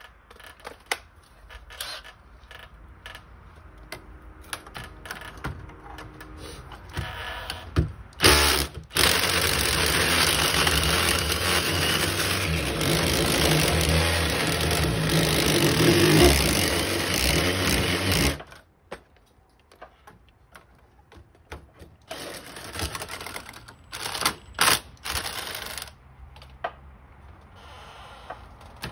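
Cordless drill boring into red brick: it starts about eight seconds in, runs steadily for about ten seconds, then stops suddenly. Light clicks and handling knocks come before and after.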